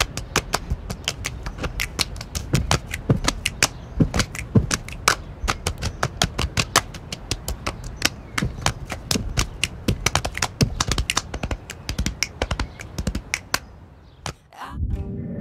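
Waterfall spray and drops striking the camera at close range, a rapid irregular patter of sharp taps over a low rumble, thinning out after about 13 seconds. Acoustic guitar music starts just before the end.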